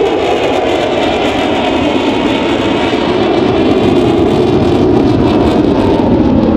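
F-16 Fighting Falcon jet engine at full display power as the fighter flies past overhead: a loud, steady jet roar with a faint shimmering whine above it.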